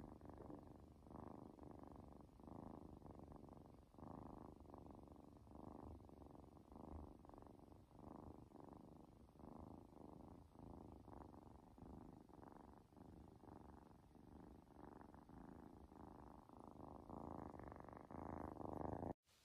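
Kitten purring steadily, a low rumble that swells and fades in a regular pulse with each breath in and out, a little louder near the end.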